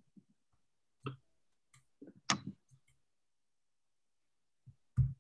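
A few short, scattered clicks and brief murmured sounds with silence between them, heard over a video call.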